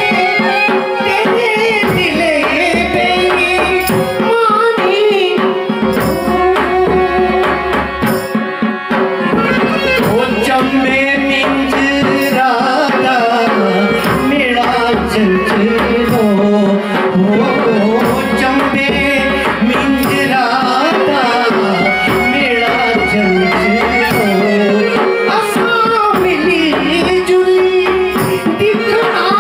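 Pahari folk song sung live into a microphone by a solo singer in a sliding, ornamented vocal line, accompanied by a harmonium and a hand drum.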